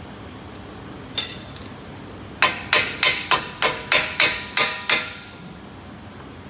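Hammer striking a disc brake caliper: one blow, then nine quick blows about three a second, each with a short metallic ring.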